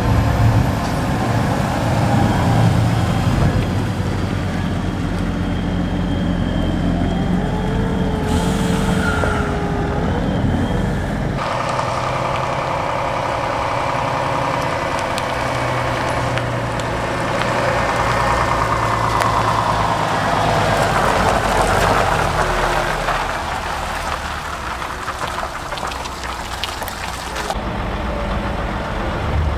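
Heavy diesel farm and haulage machinery running: a tractor and wheel loader at the maize silage heap, with a wavering whine over the engine hum. About a third of the way in the sound changes abruptly to a lorry engine running.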